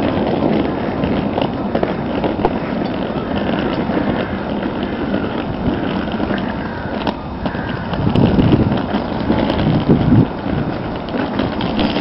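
Wind buffeting the phone's microphone: a steady rushing noise, with heavier gusts about eight seconds in.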